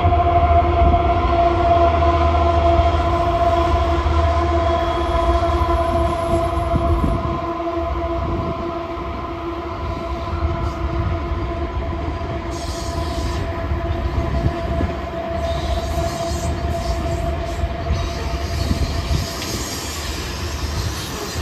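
Diesel-hauled coal train passing: a low rumble with a steady droning tone that fades, then loaded coal cars rolling by, with wheel clatter and high flange squeal from about twelve seconds in.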